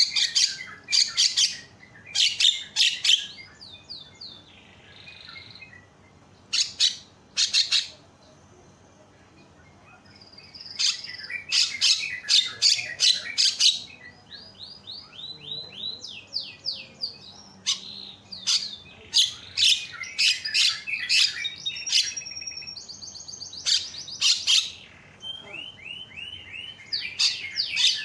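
Javan myna calling: clusters of short, harsh rasping bursts alternate with quick runs of short gliding whistled notes. There is a brief lull about eight to ten seconds in.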